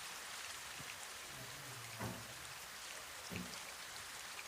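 Steady rain falling, an even hiss, with a few faint low thumps about two and three and a half seconds in.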